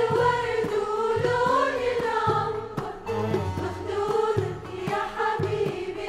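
A choir singing with instrumental accompaniment: sung lines move over a note held steadily underneath, with a low bass line recurring beneath them.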